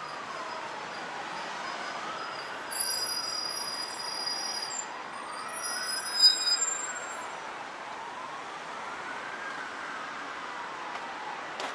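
An emergency vehicle siren wails in a slow rise and fall about every three and a half seconds, over steady traffic noise. A shrill, high-pitched squeal cuts in about three seconds in and again around six seconds.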